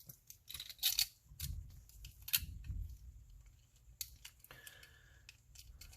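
Small plastic clicks and taps as a diecast car's plastic base is fitted onto its body, with low handling rustle and a brief faint squeak about four and a half seconds in.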